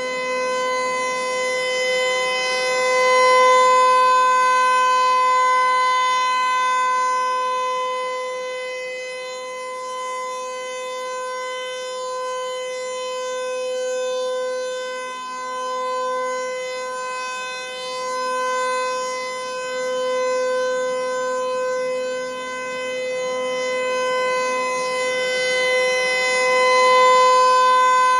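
Federal Signal 508-128 outdoor warning siren sounding the full-alert signal: a steady tone held at one pitch with strong overtones, slowly swelling and fading in loudness as the rotating horn sweeps round.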